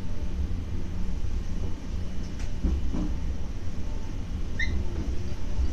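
Train running slowly, heard from inside behind the cab: a steady low rumble with a steady hum, a couple of knocks around two and a half to three seconds in, and a short high squeak about four and a half seconds in.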